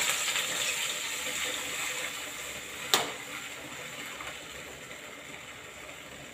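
Wheat flour and water mixture poured into a hot pan, sizzling with a steady hiss that slowly fades. A single sharp clink about three seconds in.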